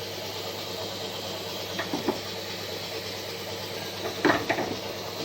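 A motor running steadily in a workshop, with a few short metallic knocks of tools or parts about two seconds in and again after four seconds, the later ones the loudest.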